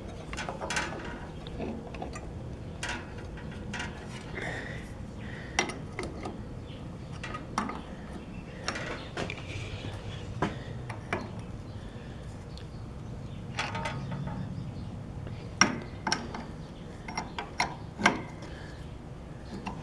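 Scattered metallic clicks, taps and clinks of hand tools and small parts being worked on a metal-cutting band saw, during adjustment of its lower blade guide bearings, with a few sharper knocks near the end.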